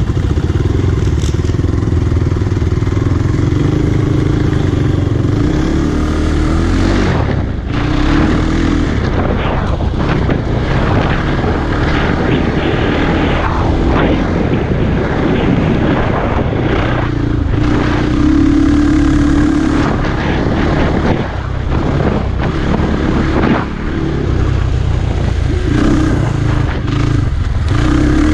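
Adly Hurricane 500S quad engine running under load as it is ridden off-road, its note rising and falling with the throttle and briefly dropping off a few times as gears are shifted, with wind and dirt noise over it.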